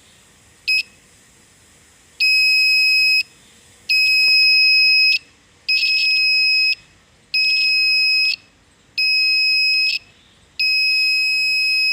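Homemade bicycle security alarm's buzzer sounding a steady high-pitched tone in bursts of about a second, with a short blip first and then six bursts, the last one longer.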